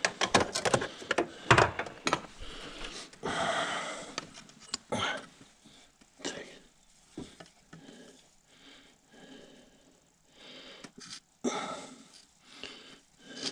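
Scattered light clicks and knocks of hands and tools handling a stripped-down engine block, with a short hiss a little over three seconds in.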